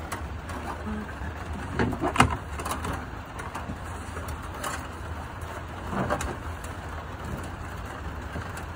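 Wires being pulled and handled against sheet-metal panels, rustling with a few knocks, the loudest a sharp knock about two seconds in, over a steady low hum.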